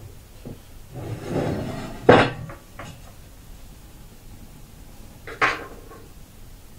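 A small stick scraping as two-part epoxy is mixed on a ceramic tile. A sharp clack comes about two seconds in and another knock comes past the five-second mark, as small tools are handled on the tile and the wooden bench.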